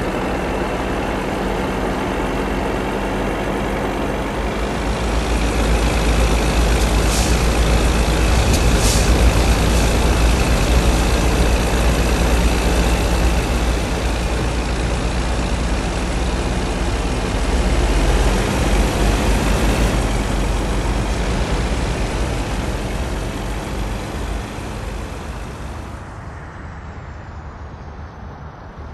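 Full-size heavy truck engine running with a deep rumble, swelling about five seconds in and fading away near the end, with two short air-brake hisses about two seconds apart. It is a real truck's sound laid over the silent HO-scale model trucks.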